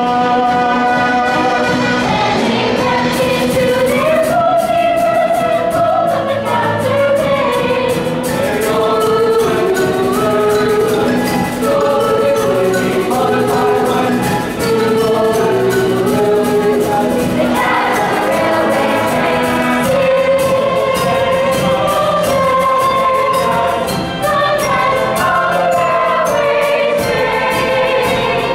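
Musical-theatre cast singing in chorus over instrumental accompaniment, heard from the audience in a school auditorium.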